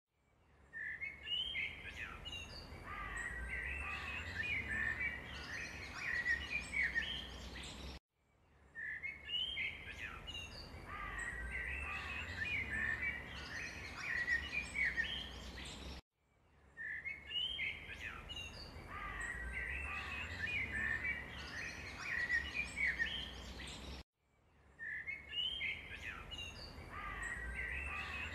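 Small birds chirping over a low steady rumble. The same eight-second stretch of sound repeats as a loop, cutting out abruptly and restarting three times.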